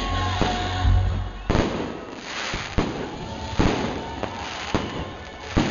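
Fireworks display shells bursting: about six sharp bangs at irregular intervals of roughly a second, each trailing off briefly.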